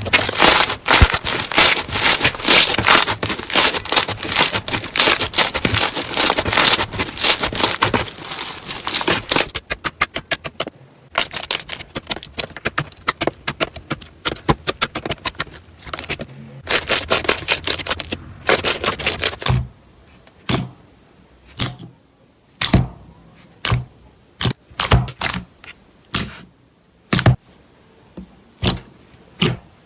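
Slime being squeezed and pressed, giving a dense run of crackling and popping clicks, then, after about twenty seconds, only single sharp pops about once a second.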